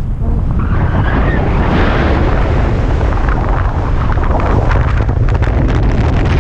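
Wind rushing over the camera microphone of a speed-flying wing in flight: a steady, heavy low buffeting with a rush of air that swells about half a second in, and rapid fluttering ticks through the second half.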